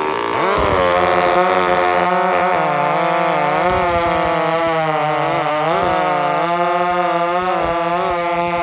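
Two-stroke chainsaw at full throttle cutting wood, its pitch dipping and recovering as the chain loads up in the cut. The chain is a round-ground chain reground square on a grinder.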